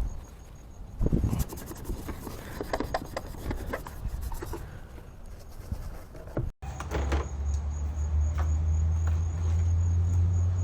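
Light rubbing and scattered clicks of dirt being wiped off the hood latch mounting area on a Jeep's hood and grille. About two-thirds of the way through, the sound cuts and a steady low hum takes over.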